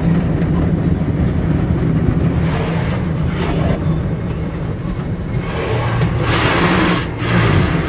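Automatic tunnel car wash heard from inside the car: a steady low rumble with cloth brushes and water sweeping over the windshield and windows. Hissing rises around three seconds in and again, louder, from about six seconds, with a short break near seven seconds.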